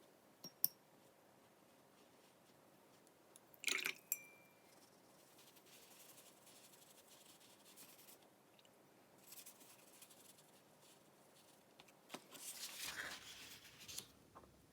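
Quiet painting sounds: a paintbrush clinks against a glass jar of water about four seconds in, and soft brush strokes rustle on paper near the end.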